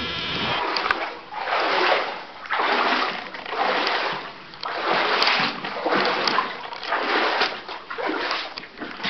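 Footsteps wading through shallow water, a splash with each step, about one a second.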